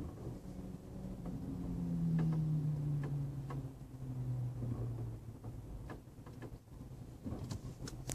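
2013 Toyota RAV4 slowing down: a low hum falls steadily in pitch over a few seconds, with a few faint knocks scattered through.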